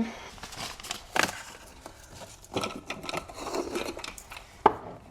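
Pantry items such as spice containers and jars being handled and set down on a shelf: scattered knocks and clinks with rustling between, the sharpest knock near the end.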